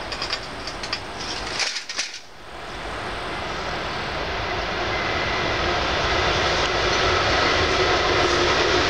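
VL10 electric locomotive hauling a freight train as it approaches: a steady rumble growing louder, with a whine of several steady tones coming up from about halfway in. A few brief crackles in the first two seconds.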